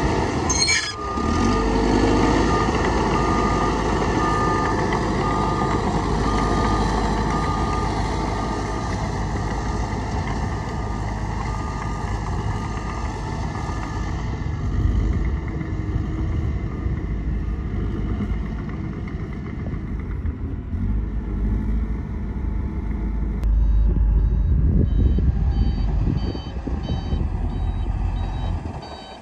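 Heavy diesel construction machinery running, with a back-up alarm beeping at a steady pace through the first half; a higher-pitched back-up beeper joins near the end.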